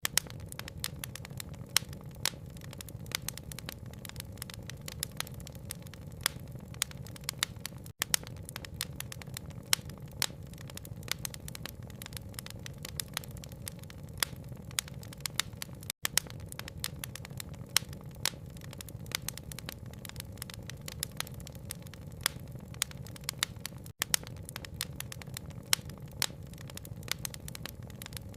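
Wood fire crackling, with many sharp irregular pops over a steady low rumble. The sound cuts out for an instant about every eight seconds, where a short recording loops.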